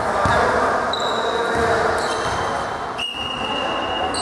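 Echoing sports-hall sounds during a volleyball match: a hum of voices, a few sharp knocks of a ball on the floor, and high shoe squeaks on the court, one drawn out for about a second near the end.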